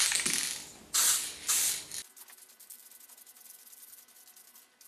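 Aerosol can of enamel spray paint hissing in short bursts, three in the first two seconds, then only faint ticking.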